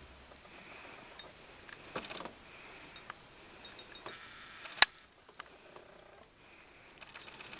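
Faint outdoor background with scattered small clicks and rustles, and one sharp click a little under five seconds in, the loudest sound.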